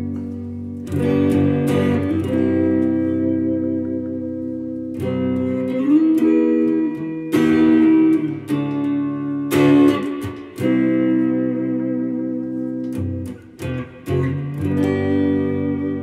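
Strat-style electric guitar with a walnut-over-ash body, played clean on its Tex-Mex neck pickup through a Boss Katana amp. A run of chords is strummed, each left to ring out.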